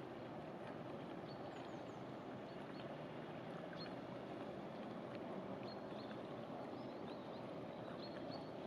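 Steady low noise of an inland cargo barge under way, with short high bird chirps scattered over it.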